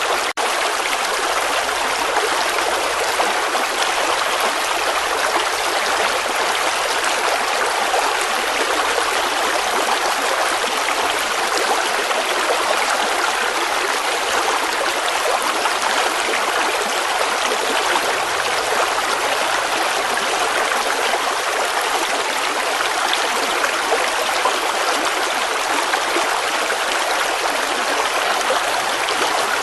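Running water flowing steadily, like a stream or small cascade, with an even, unbroken rush. There is one momentary dropout just after the start.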